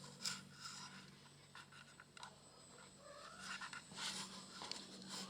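Faint, scattered scratching and rustling, with a low steady hum underneath.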